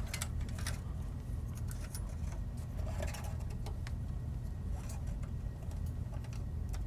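Light, scattered clicks and rattles of a control panel cable and its fittings being unrouted by hand from a server chassis, over a steady low hum.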